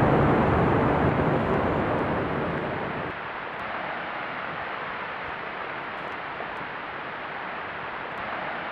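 Rumble of a building collapsing just after an explosive demolition blast, fading over the first three seconds. The deep rumble drops away about three seconds in, leaving a steady hiss as the dust cloud rolls over.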